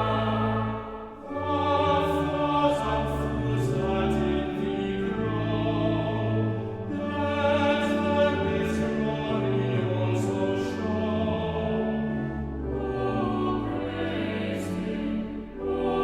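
Church choir singing a hymn in sustained chords, phrase by phrase, with a short breath between phrases about a second in.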